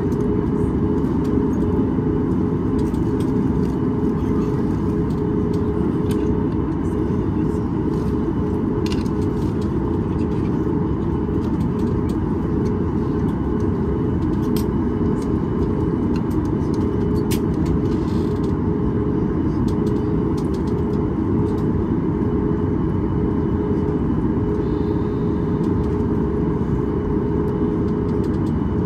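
Steady cabin noise inside a Boeing 737 MAX 8 heard from a window seat: a constant rumble from its CFM LEAP-1B turbofan engines and airflow, with a steady hum.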